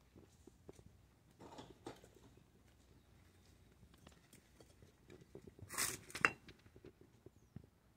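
Faint scuffs and ticks of footsteps on dirt and stone as a phone camera is carried along, with a louder scrape and a sharp click about six seconds in.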